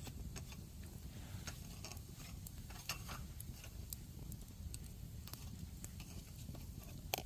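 Scattered light clicks and taps of a utensil against a camp cooking pot as food is handled, with one sharper click near the end, over a low steady rumble.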